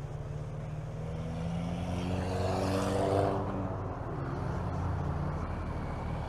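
Motorcycle engine pulling hard, its pitch climbing steadily for about three seconds and then dropping around four seconds in before running on, with wind rushing over the helmet-mounted microphone.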